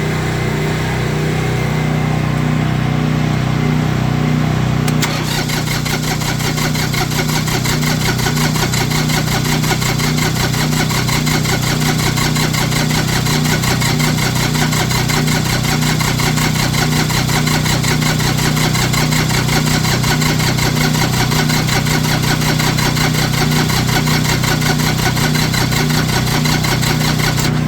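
Diesel tractor engine running steadily with a fast, even clatter; it is running cold on faulty glow plugs after a hair-dryer-assisted start. About five seconds in, the sound abruptly becomes brighter and more clattery.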